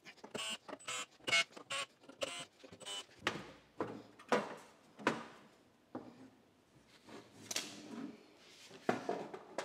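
Cordless drill running in rapid short bursts, backing screws out of a sheet-steel battery case lid, followed by several longer scrapes and knocks as the metal cover is handled and lifted off.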